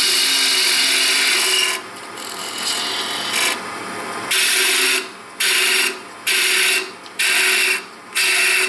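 Wood lathe turning a wooden blank while a hand-held turning tool cuts into the spinning wood: one continuous cut for nearly two seconds, then a series of short cuts about once a second, with the lathe's steady hum between them.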